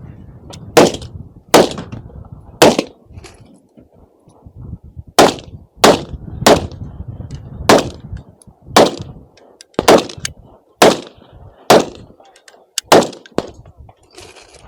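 Gunshots from what is likely an AR-style semi-automatic rifle. About a dozen single shots come at roughly one a second, with a pause of about two seconds after the first three, and fainter shots fall in between.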